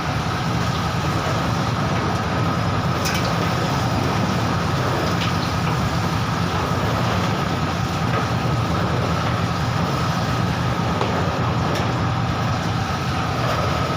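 Stainless-steel porang tuber washing machine running, its 2 HP three-phase motor and WPX gearbox turning the washer with a steady low hum and a thin steady whine. Two sharp clicks come through, one about three seconds in and one near the end.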